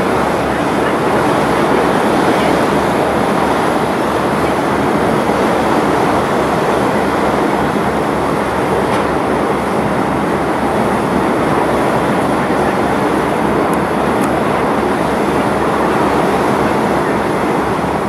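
Boat engine running at a steady drone with rushing water, a fast low throb underneath.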